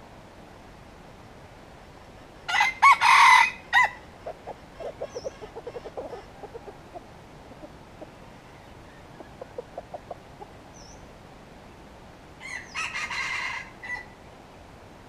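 Red junglefowl (wild rooster) crowing twice: a loud crow about two and a half seconds in and a fainter one near the end. Between the crows there is a run of low, rapid clucking.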